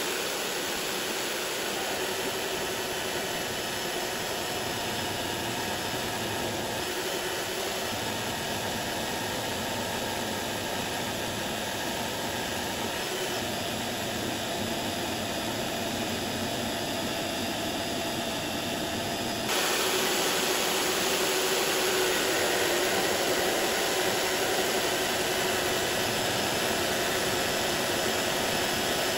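Power saw cutting steadily through a thick block of aluminum to rough out a blank. It is a continuous harsh running noise that gets louder and brighter about two-thirds of the way through.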